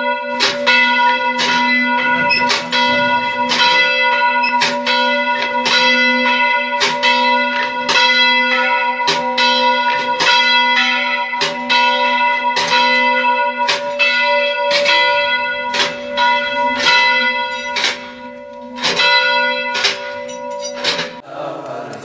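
A church bell rung by pulling its rope, struck over and over at about two strikes a second, its tone ringing on between strikes. The ringing stops about a second before the end.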